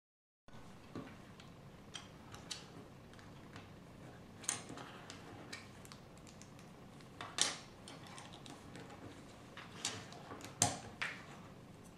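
Plastic Lego bricks being handled and pressed together over a wooden table: faint rustle with scattered light clicks and a few sharper ones.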